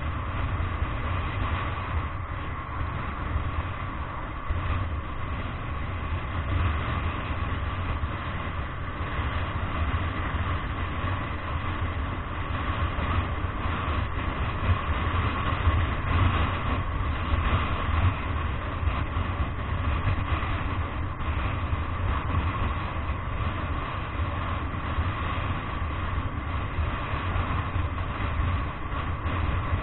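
Steady low rumble of a vehicle driving along a road, engine and tyre noise heard from inside the cabin, with a faint steady hum above it.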